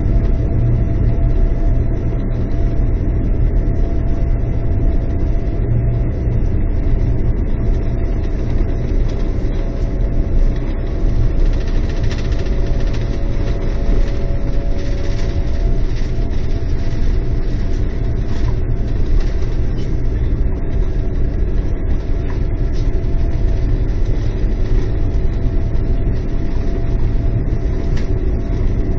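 Cabin noise inside a Boeing 787 airliner moving on the ground: a steady low engine and rolling rumble with a faint high whine over it. One of the whining tones stops about halfway through.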